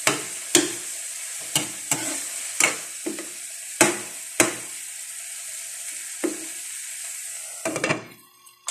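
Tomatoes and onions sizzling in a frying pan while a metal ladle stirs them, knocking against the pan about ten times. Near the end a glass lid goes onto the pan and the sizzling drops away.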